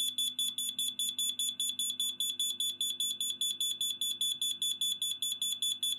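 Kidde alarm's sounder going off during a push-button test: a shrill, high-pitched beep repeating rapidly and evenly, about six or seven times a second.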